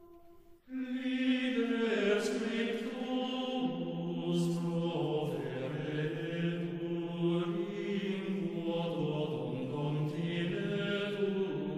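Film-score music: slow, chant-like singing with long held notes that shift in pitch every second or so. It comes in suddenly about a second in.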